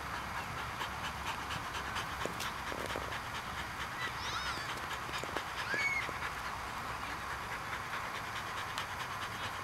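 Dog panting steadily with its tongue out. A few short high chirps come about four and six seconds in.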